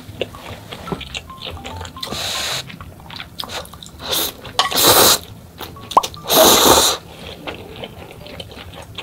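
Instant ramen noodles being slurped in four bursts, about 2, 4, 5 and 6.5 seconds in, the last two loudest, with chewing and small clicks of chopsticks and bowl between.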